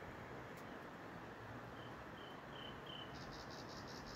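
Insects chirping over a steady low hiss: a few short high chirps, then a rapid pulsed trill near the end.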